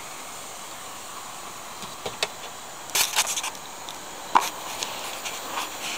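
Light clicks and a brief clatter of model trains being handled and moved, with one sharper click about four seconds in, over a steady low hiss.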